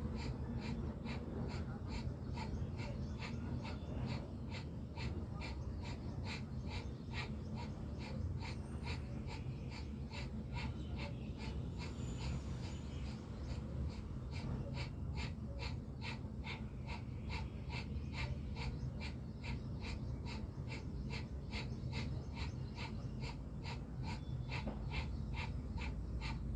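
Bhastrika pranayama (bellows breath): forceful, rapid breaths through the nose in an even rhythm, about two to three a second, over a steady low hum.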